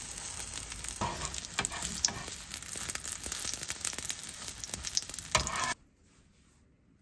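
Food sizzling in a frying pan while it is stirred, with repeated scraping strokes of the utensil against the pan. The sizzling stops abruptly near the end.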